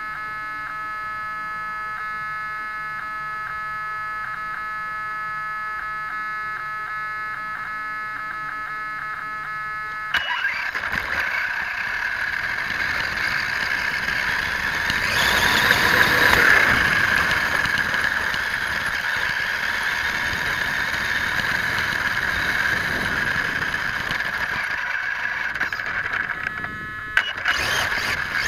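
Onboard sound of a Vaterra Twin Hammers RC rock racer: a steady whine made of several pitched tones for about ten seconds, then it changes abruptly to a louder, rougher running noise as the truck drives over dirt, with a high motor whine over tyre and chassis noise, loudest a few seconds later.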